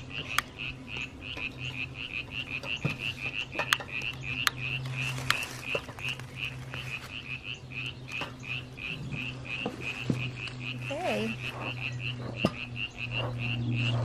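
A steady train of short high chirps, about four a second, from a calling animal, over a low steady hum. Scattered sharp clicks come through as a long-nosed utility lighter is worked inside a bee smoker's fuel can.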